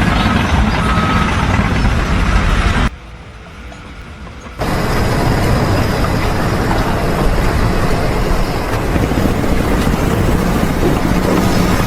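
Heavy vehicle engine running loudly and steadily. The sound drops away for about a second and a half around three seconds in, then comes back as before.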